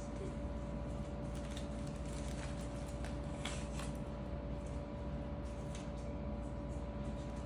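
Faint wet squishes and light clicks of raw meat being pushed onto wooden skewers by hand, a few scattered handling noises, over a steady hum.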